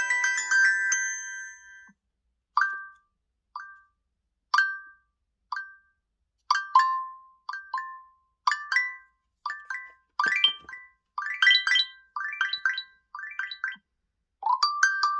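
Google Pixel 7a ringtones: a mallet-like tune fades out, then a new ringtone of short bell-like pings starts, sparse at first and coming faster and busier, and another tune begins near the end.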